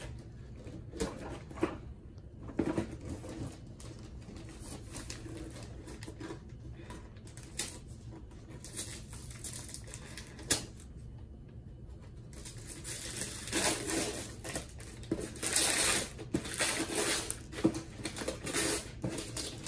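Christmas wrapping paper being picked at and torn off a cardboard gift box: scattered small taps and rustles, then from about two-thirds of the way in a run of ripping and crinkling paper.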